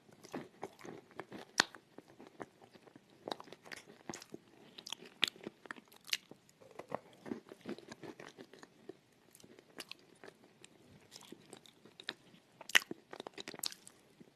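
Close-miked crunching and chewing as a person bites into pieces of chalk and grinds them between the teeth: irregular crisp snaps, a few much louder than the rest.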